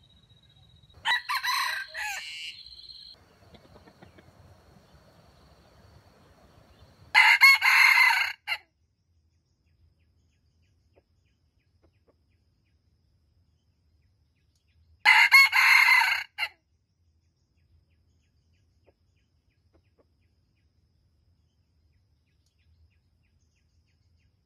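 Junglefowl rooster crowing three times, each crow short, about a second and a half, spaced roughly six to eight seconds apart.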